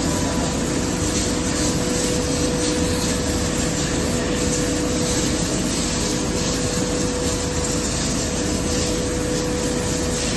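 Kibble production-line machinery running steadily: a constant mechanical noise of conveyors and motors with a steady hum.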